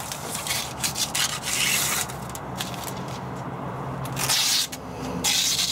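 Hands rubbing and scuffing as Velcro strips and an insulated headliner panel are pressed and slid against the Jeep's plastic interior trim, in irregular strokes of varying length.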